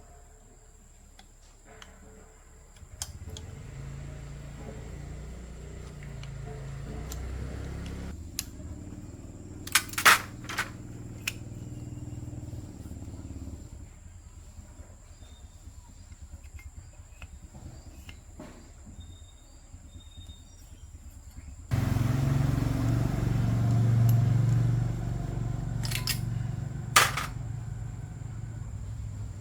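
A motor runs with a low hum from about four seconds in until around fourteen seconds, then starts again, louder, about twenty-two seconds in. Several sharp knocks are heard over it, two of them close together near ten seconds and two more near the end.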